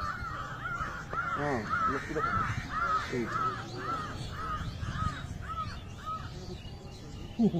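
A crow cawing in a long, even series of about two to three caws a second, stopping about six seconds in. Men's voices are faint underneath.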